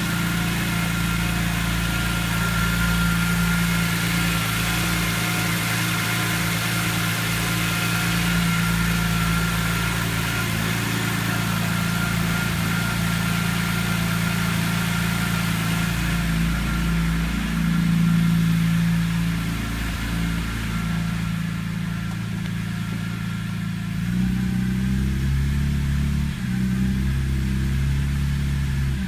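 Car engine idling roughly in the first minutes after starting, its note wavering unevenly rather than holding steady. About 24 seconds in the note changes as the idle speed shifts, and a faint steady whine sits above the engine for most of the first 20 seconds.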